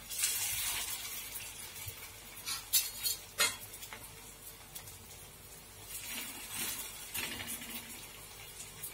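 Potato patties sizzling in shallow oil on a flat tawa, with a fresh burst of hissing each time a patty is laid in, once at the start and again about six seconds in. A few sharp clicks come about three seconds in.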